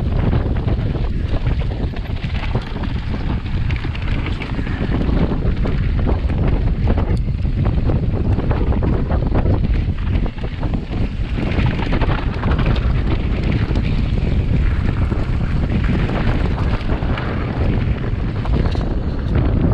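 Wind buffeting the microphone of a body-mounted action camera on a mountain bike at speed, under a constant clatter of knocks as the tyres run over loose rock and gravel and the bike rattles.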